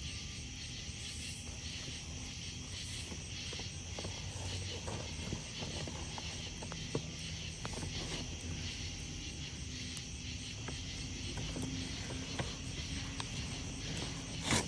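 Wood fire crackling with scattered sharp pops and clicks, over a steady high chorus of night insects.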